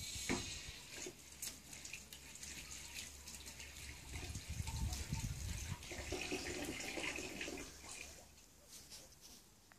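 A Kuvasz puppy chewing and mouthing a rubber ball: wet gnawing and licking with many small clicks, over a low rumble.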